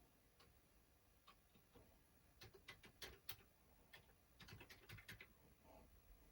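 Faint, irregular clicking of keys being typed on a Commodore 64 keyboard, with the clicks bunched in the middle.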